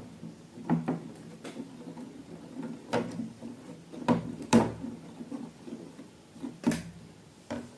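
A series of irregular knocks and taps, about a dozen, each with a short low ring, as of objects being handled and set down on a hard surface; the loudest comes about four and a half seconds in.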